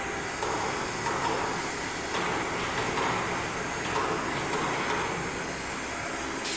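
Steady workshop background noise with faint, indistinct voices.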